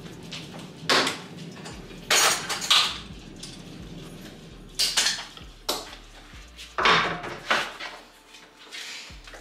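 Clunks and clatter of a plastic air fryer and other kitchenware being carried, knocked and set down on a kitchen counter: about eight irregular knocks, some with a brief ring.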